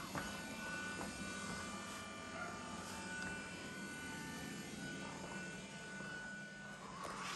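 A steady electrical hum with a faint high whine held above it.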